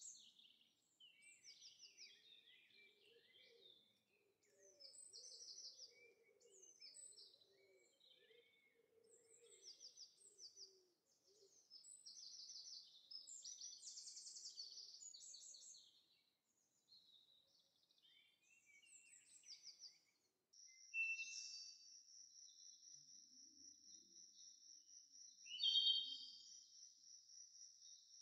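Faint nature ambience of small birds chirping and trilling, joined about two-thirds of the way in by an insect trilling steadily in a high, evenly pulsed note.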